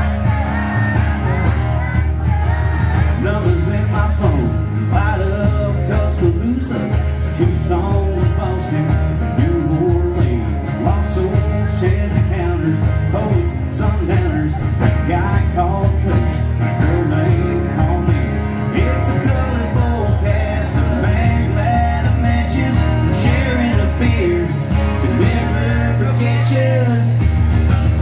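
Live acoustic country song: a male voice singing over a strummed acoustic guitar, with hand percussion and a shaker keeping the beat.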